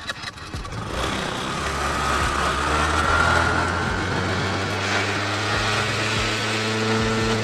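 Honda Activa 5G scooter's single-cylinder petrol engine running as the throttle is worked through a newly fitted accelerator cable, which is being tested. The sound grows louder about a second in, and a whine rises and then eases off over the next couple of seconds.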